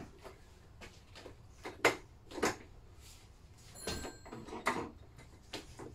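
Separate metal clunks and knocks from a partly stripped Lister D engine being handled and worked loose on its wheeled stand, the loudest about two seconds in, with a short squeak near the middle.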